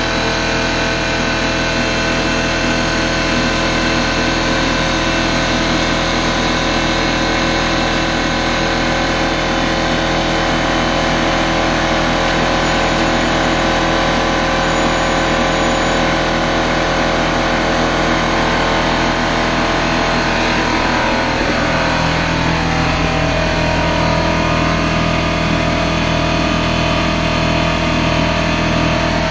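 An air compressor runs steadily and loudly while it pressurizes a resin-casting pressure pot toward about 50 psi. Its tone shifts a little over two-thirds of the way through, and a low pulsing comes in.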